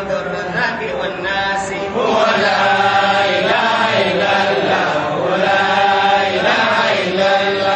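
Men chanting Sufi dhikr (zikr) into microphones, in long drawn-out sung phrases that glide up and down in pitch. The chant grows louder about two seconds in.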